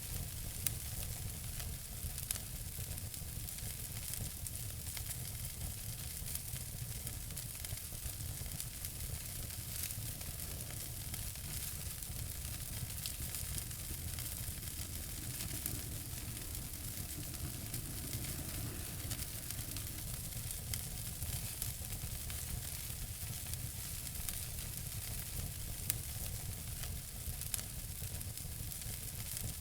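Wood fire in a fireplace crackling: a steady hiss and low rumble with frequent small snaps and a few louder pops.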